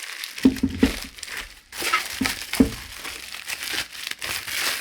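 Bubble wrap crinkling and rustling as it is pulled off a PC power supply, with a few dull knocks from handling the unit in the first few seconds.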